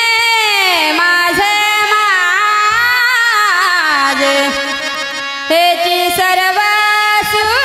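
A woman singing a long, drawn-out devotional melody with sliding, ornamented notes, a new louder phrase starting about five and a half seconds in, over harmonium accompaniment.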